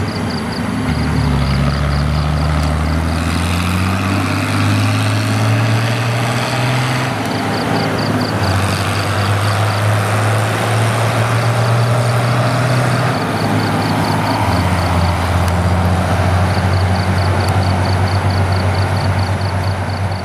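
Fiat 850 tractor's diesel engine running as it pulls a loaded trailer along the road, its pitch shifting up and down a few times. A faint rapid high ticking runs underneath.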